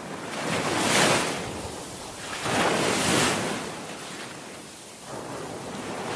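Sea waves surging and washing in, two loud swells in the first three seconds and a softer one near the end.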